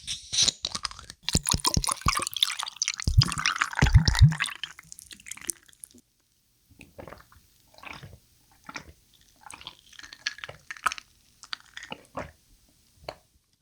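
Close-miked liquid and mouth sounds of corn silk tea being drunk. There are dense wet clicks for the first few seconds and a few low swallows about three to four seconds in, then sparse quieter clicks.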